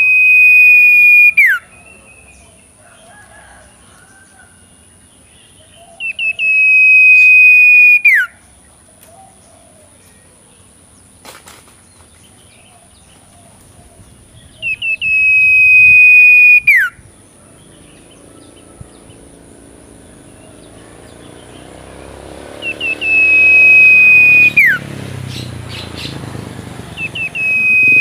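A two-month-old owlet calling five times, roughly every five to eight seconds: each call is a few short notes leading into a long, high, steady whistle of about a second and a half that ends in a sharp downward drop. A low rumble grows in the background over the last several seconds.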